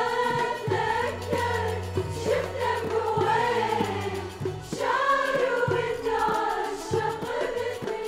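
Music: a choir singing a melody over accompaniment with a steady beat.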